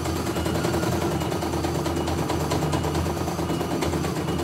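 CNY E900 computerized embroidery machine stitching, its needle running in a rapid, steady clatter over a motor hum as the hoop carriage moves the fabric.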